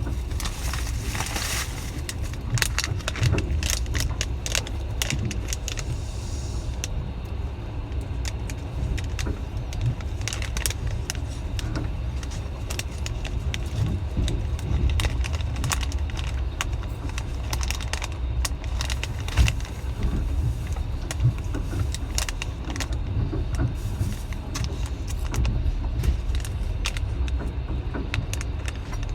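Moving train: a steady low rumble of the wheels on the rails, with frequent irregular rattling and clicking.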